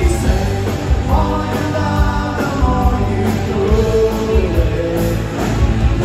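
Live new wave rock band playing: electric guitars, synthesizer keyboard and drums, with a singer's voice over them.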